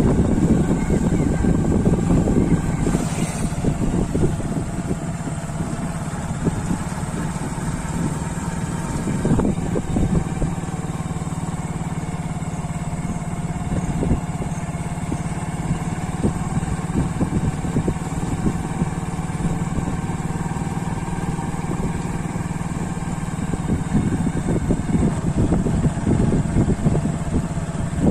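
Motorcycle engine running steadily while being ridden, a continuous even hum.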